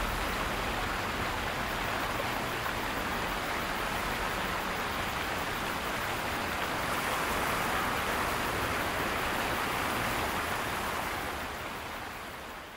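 Steady rushing of river water, an even hiss, fading out near the end.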